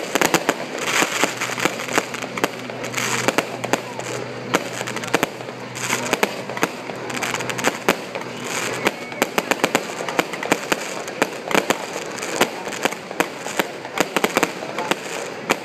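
Aerial fireworks bursting overhead: many sharp bangs and crackles in quick, irregular succession, without a break.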